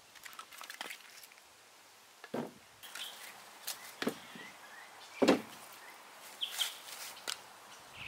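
Split firewood logs knocking against one another as they are handled and stacked: a few separate wooden knocks, the loudest about five seconds in. Short bird chirps sound in the background.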